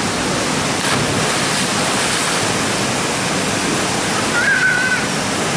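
Fast river water rushing in rapids, a loud steady roar of churning water. A brief high whistle-like tone sounds about four and a half seconds in.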